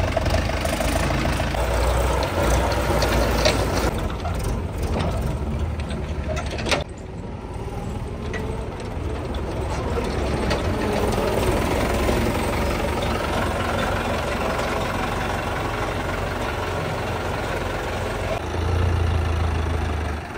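Mahindra tractor diesel engines running steadily, with a short knock about seven seconds in.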